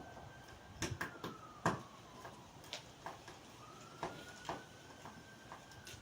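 A string of irregular sharp clicks and knocks from small hard objects being handled, the loudest about two seconds in. Under them a faint siren wails, its tone sliding up and back down, with a second rise starting a little past the middle.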